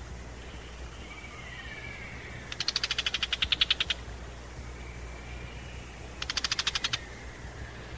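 Tiger shrike giving harsh, rapid chattering alarm calls in two bursts, the first about 1.5 s long and the second shorter near the end. This is the shrike scolding an eagle-owl that has entered its territory. Faint, thin sliding whistles of another bird sound between the bursts.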